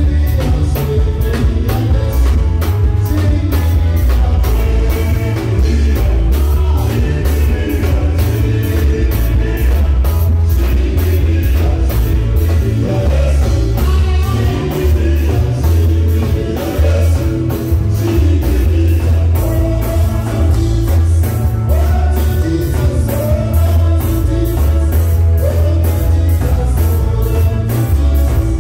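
Loud dance music with singing over a heavy, pulsing bass beat.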